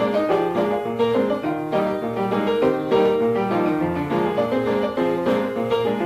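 Piano music with a busy, continuous run of quick notes.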